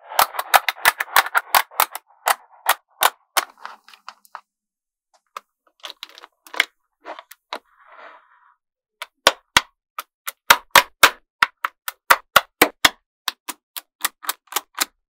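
Small neodymium magnetic balls clicking and snapping together as strips of them are joined into a panel. Sharp clicks come in quick runs, with a dense rattling clatter in the first two seconds and a brief soft rolling sound about eight seconds in.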